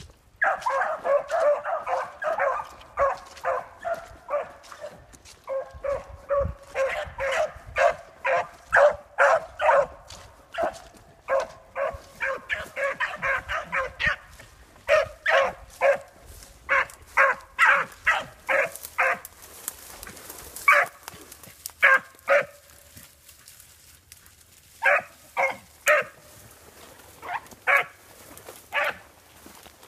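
Two beagles baying as they run a scent trail, giving rapid repeated calls that overlap at times. The calls thin out and briefly stop a little past twenty seconds in, then start again.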